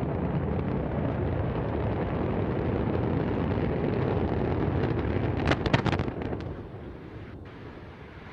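Antares rocket's two AJ26 first-stage engines running in a steady low rumble during ascent, broken about five and a half seconds in by a quick cluster of sharp cracks as the vehicle fails and explodes, after which the rumble fades.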